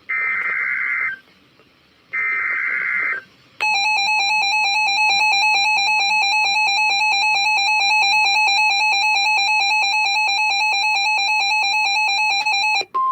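Emergency Alert System SAME header: two one-second bursts of screechy digital data tones, then a long harsh steady alert tone with a rapid buzzing pulse that lasts about nine seconds and cuts off abruptly near the end.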